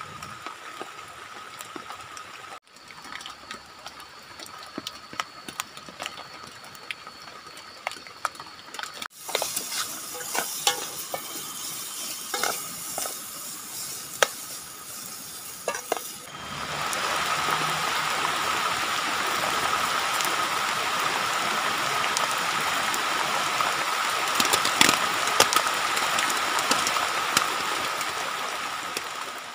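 Short clips in a row: first faint rain and small knocks, then a spoon stirring and scraping in a metal pot over a campfire. From about sixteen seconds in, heavy rain falls steadily on a plastic flysheet overhead, the loudest part.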